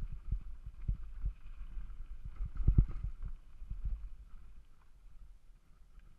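Irregular low thumps of footsteps and a pushed mountain bike jostling over a dirt trail, heard through a body-mounted camera; loudest about three seconds in, fading toward the end.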